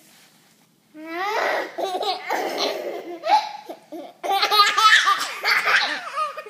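A baby laughing in two long bouts, the first starting about a second in and the second, louder one after about four seconds.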